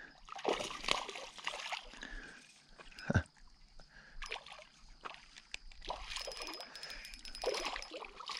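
Hooked smallmouth bass splashing and thrashing at the water's surface while it fights the line, in irregular bursts, with one sharper thump about three seconds in.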